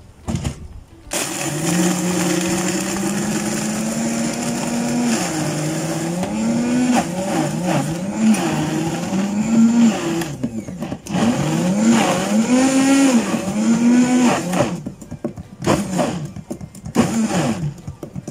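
Café drink blender running as it blends a frappé. Its motor pitch sags and climbs back again and again as the load on the blades changes, then it stops and is run in a few short bursts near the end.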